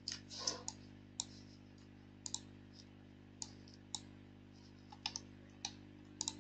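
Computer mouse clicking at irregular intervals: about a dozen short, sharp clicks, several in quick pairs like double-clicks, over a faint steady low hum.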